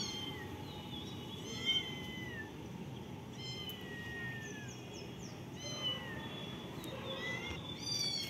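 A cat meowing repeatedly in short, high-pitched calls that fall in pitch.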